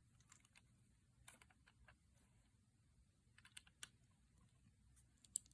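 Faint, scattered clicks of plastic Lego pieces being handled and pressed together, with a few quick clicks about three and a half seconds in and a sharper one near the end.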